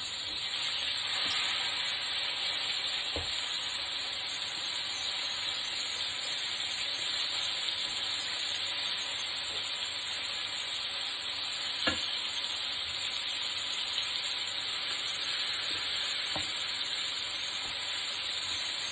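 Flour-coated chicken strips shallow-frying in hot vegetable oil: a steady sizzle, with three light clicks, the first about three seconds in, the loudest about two-thirds of the way through.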